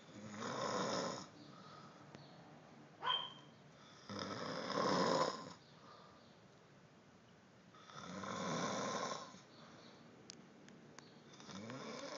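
Snoring in slow, even breaths, four long snores about four seconds apart. A short sharp sound with a brief high squeak comes between the first and second snores.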